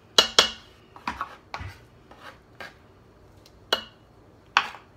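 Steel chef's knife clinking and scraping against the rim of a stainless steel Instant Pot inner pot as mashed roasted garlic is scraped off the blade: a series of irregular sharp metallic clinks, the loudest near the start, a few ringing briefly.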